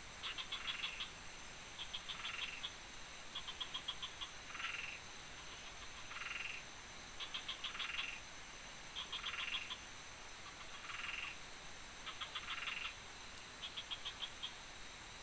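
Frogs calling: short trilling calls repeated every second or two, over a steady high-pitched hum.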